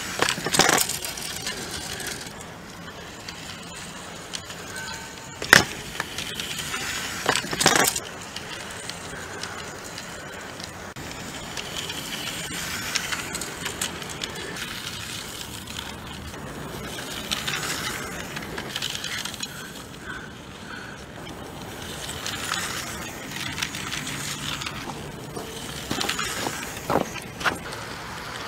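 Battery-powered toy tram running on plastic track: a steady rolling whir with a few sharp clicks and knocks, near the start, twice more a few seconds in, and near the end.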